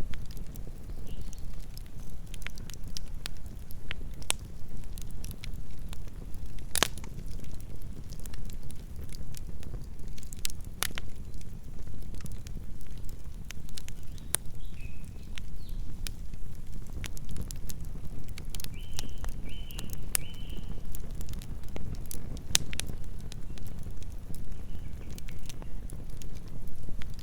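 Campfire burning: a steady low rumble of flames with irregular crackles and pops of burning wood, the sharpest pop about seven seconds in.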